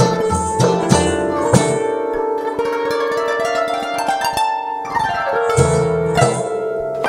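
Background music: a plucked-string melody over a rhythmic beat. The beat drops out for a few seconds in the middle and comes back near the end.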